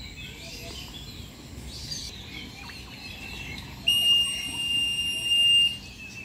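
Songbirds chirping in the background; about four seconds in, a loud, steady high-pitched whistle held for nearly two seconds, a keeper's call to bring the birds down to feed.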